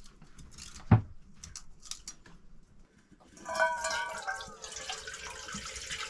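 A sharp knock about a second in, then from about three and a half seconds in, greenish-brown engine coolant from a Volvo Penta MD 20/30 marine diesel pours and splashes into a stainless steel bowl, the bowl ringing faintly under the stream.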